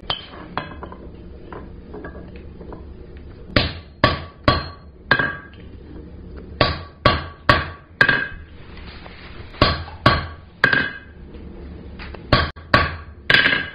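Hand hammer striking a center punch held on a red-hot mild steel bar on the anvil, recessing screw holes so the screws will sit flush. A few light taps, then about sixteen sharp blows in groups of three to five, each with a brief metallic ring.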